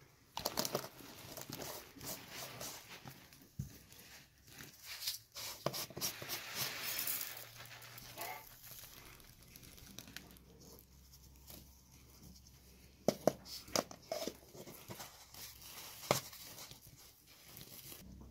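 Hands handling plastic containers over a plastic basin of flour: a plastic lid scooping flour and a fine white powder poured from a plastic jar into it, with a soft rustling hiss and several sharp plastic clicks and knocks.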